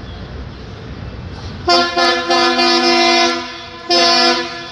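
Horn of an approaching Indian Railways WDM3D diesel-electric locomotive. It gives a long blast with two brief breaks, then a shorter blast about half a second later, over the low rumble of the engine.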